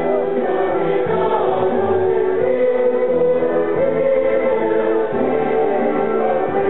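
Choir singing slow, held notes with musical accompaniment.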